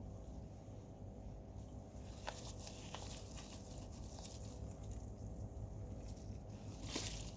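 Potatoes being dug out of soil by hand: scattered light crunches and knocks of earth and tubers, with a louder scraping rustle near the end.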